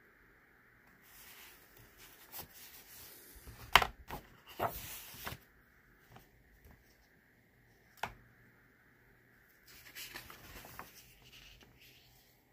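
Pages of a hardbound book being opened and turned by hand: paper rustling and swishing, with sharp slaps and clicks, the loudest a little under four seconds in and another around eight seconds.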